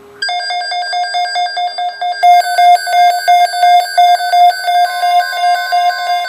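Loud electronic emergency alert tones, beginning suddenly with rapid pulsing beeps over steady pitches. They grow louder and pulse about three times a second, and a further steady tone joins near the end. The tones announce an emergency alert broadcast of a severe thunderstorm watch.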